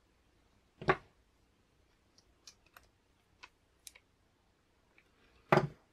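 Small metal brake-lever parts and a screwdriver handled on a wooden desk: a sharp knock about a second in, a few light clicks in the middle as the screwdriver turns the reservoir-cover screws, and a second knock near the end.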